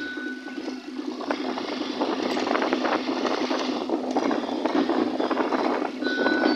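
Running noise from a vehicle moving along a highway: a steady low hum under rough, crackly road and engine noise.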